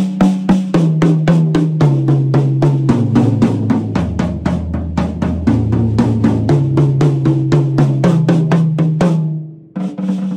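Drum-kit toms played with sticks in a rapid, even run of strokes, a rudiment moved around the toms: the pitch steps down from the high toms to the floor tom and then back up. The run stops about nine seconds in, and a short last burst of strokes follows.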